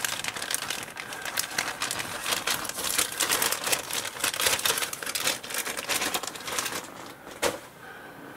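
Clear plastic bag around a model-kit sprue crinkling as it is handled, a continuous crackle that thins out near the end, with one sharper knock shortly before it stops.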